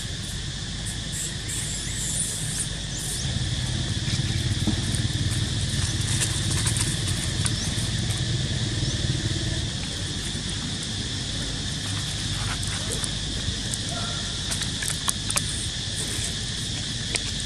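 Insects chirring steadily at a high pitch, under a low rumble that swells from about four to ten seconds in; a few sharp clicks near the end.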